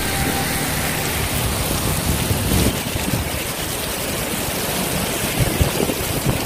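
Heavy tropical rain pouring down in a dense, steady hiss, with a few brief low buffets of wind on the microphone.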